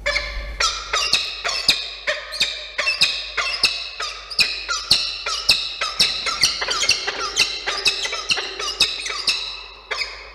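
Peregrine falcon calling: a rapid series of loud, repeated calls, about three to four a second, that stop shortly before the end. The calls accompany a peregrine bringing a starling as prey into the nest box.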